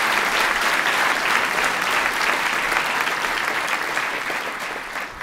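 A large audience applauding in a hall, many hands clapping at once.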